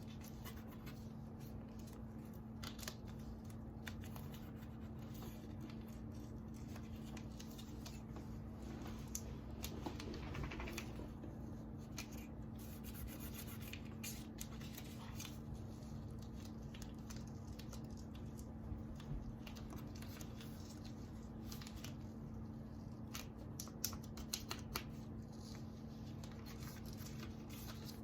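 Intermittent scratching, rubbing and small clicks of hands pressing transfer tape down over cut vinyl letters on a craft board, with a steady low hum underneath.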